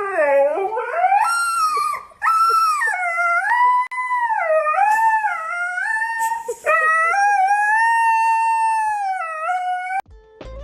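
A dog howling in long, wavering calls that slide up and down in pitch, with short breaks about two and four seconds in. The howling cuts off suddenly near the end.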